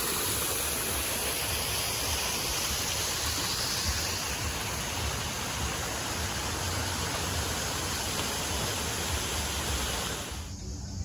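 Fountain jets splashing into a pool: a steady rush of falling water that cuts off suddenly near the end.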